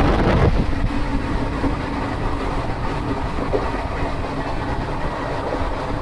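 Indian Railways ICF passenger coach running fast on the track: steady rumble and clatter of wheels and bogies over the rails, heard through the open coach door. The sound is a little louder for about the first half-second, then holds level.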